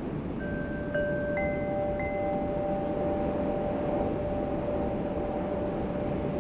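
Wind chimes struck several times in quick succession in the first two seconds, each a clear metallic tone. The lowest note rings on long after, over a steady low rush of wind.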